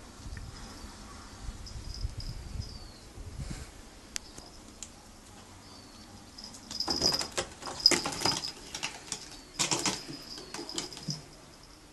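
Close rustling and scratching from a Maine Coon kitten playing against a carpet-covered cat tree: a scratchy burst about seven seconds in and a shorter one near ten seconds, with a faint low rumble in the first few seconds.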